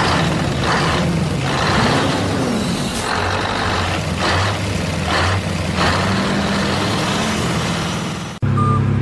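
Heavy truck engine running, with repeated hissing bursts like air-brake releases, as a truck sound effect for a toy truck. It cuts suddenly to music near the end.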